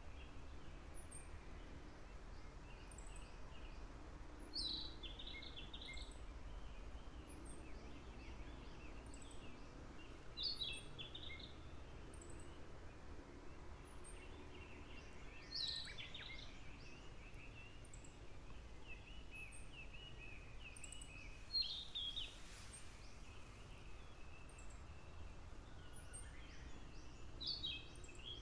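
A songbird singing a short falling phrase about every five to six seconds, over fainter twittering from other birds, faint regular high ticks and a steady low background rumble.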